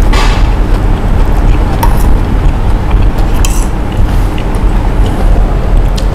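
Steady low road-traffic rumble with a few short, light clinks.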